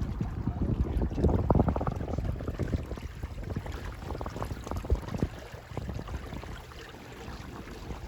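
Wind buffeting the microphone, with water splashing along the hull of a small sailboat under way. It is gustier and louder in the first two seconds and eases toward the end.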